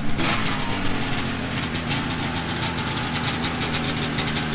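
Restored vintage Ski-Doo Blizzard 5500 snowmobile's two-stroke engine idling steadily just after start-up, an even purr.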